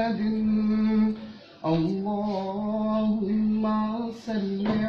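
A man singing the durood refrain of an Urdu naat without instruments, drawing out 'Muhammad' and the following syllables in long, wavering held notes, with a short break for breath about a second and a half in.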